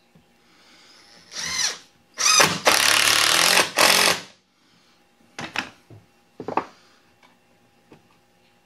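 Cordless drill driving a screw into plywood: a short spin-up about a second in, then a longer run of about two seconds, the motor whine rising as it starts. A couple of light knocks follow.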